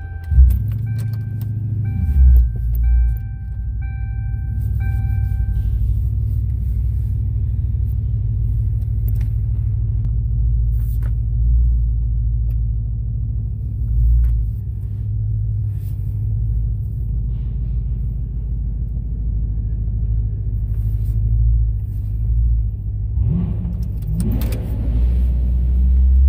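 Lincoln Town Car heard from inside the cabin, its engine and road noise a steady low rumble as it drives. The car's warning chime sounds five times, about a second apart, in the first few seconds, and the engine note rises near the end as it speeds up.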